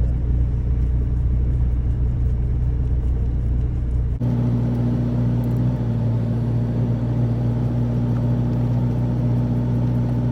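A steady low mechanical hum. About four seconds in it cuts abruptly to a different steady hum with a more distinct pitch.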